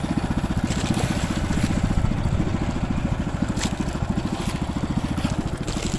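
Small engine of an outrigger fishing boat running at a steady, rapid putter, with a few brief hisses over it.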